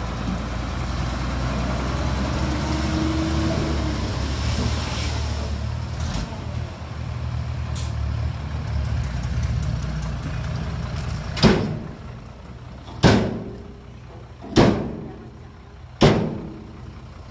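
Dump truck's diesel engine running while its bed is tipped to unload dirt, easing off about six seconds in. From about eleven seconds in, four loud bangs come at even intervals of about a second and a half, each ringing briefly.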